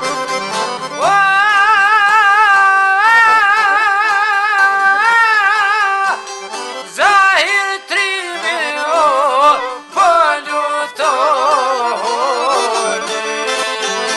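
Albanian folk song recording: a high melody rises into long notes held with vibrato, then breaks into quicker ornamented runs over a steady lower accompaniment.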